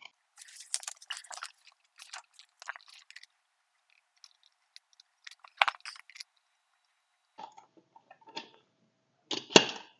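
Faint, irregular clicks and scrapes of metal nuts being threaded by hand onto the studs of a compact tractor's wheel spacer and hub, with a couple of sharper clinks about halfway through and near the end.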